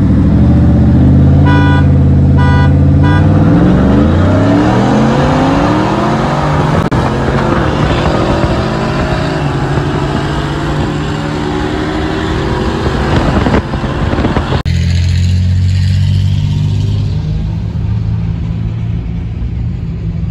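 Two V8 street-race vehicles, a Ford Lightning 5.0 pickup with a 10-speed automatic and a Chevrolet Camaro SS, rev at the line, then launch and accelerate hard past, their pitch climbing again and again through the gears. From about two-thirds of the way in, a GMC Sierra pickup's engine idles steadily.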